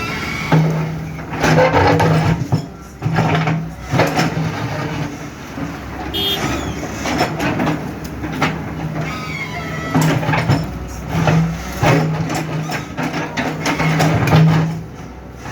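Excavator digging: a low engine hum that keeps breaking off and coming back, with repeated knocks and clanks as the bucket works.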